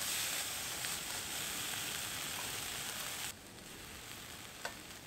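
Slices of meat sizzling loudly in a frying pan on a portable butane camp stove. The loud sizzle cuts off suddenly about three seconds in, and a quieter sizzle carries on, with a single light click near the end.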